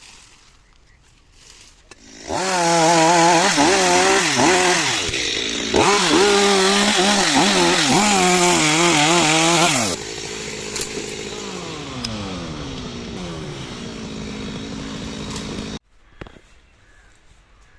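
Stihl chainsaw cutting a tree branch, starting about two seconds in and revving hard with its pitch rising and falling under load. About ten seconds in it drops sharply in level and its pitch falls to a steady idle, then it cuts off suddenly near the end.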